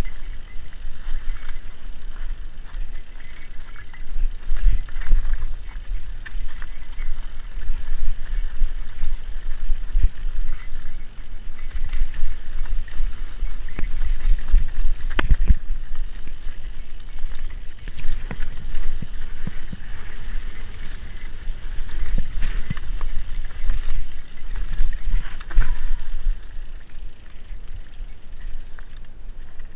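Mountain bike riding fast down a dirt trail: steady wind buffeting and tyre rumble, with frequent knocks and rattles from the bike over bumps and one louder knock about halfway through.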